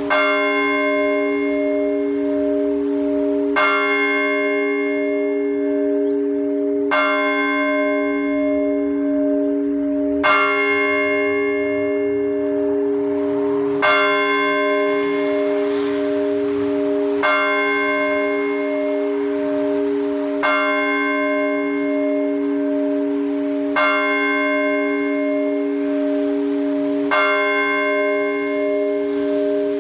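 Russian Orthodox church bell struck in slow, even strokes, about one every three and a half seconds. Each stroke rings out bright and fades while the bell's deep hum carries on between strokes.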